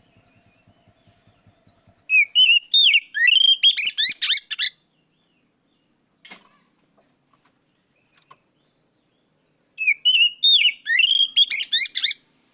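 Oriental magpie-robin (kacer) singing two loud phrases a few seconds apart. Each phrase opens with clear whistled glides and breaks into a fast run of sharp, chattering notes.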